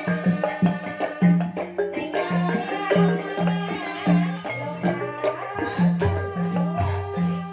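Banyumasan gending music in ebeg style: tuned percussion and drums playing a steady, driving beat, with low pitched notes stepping between a few tones.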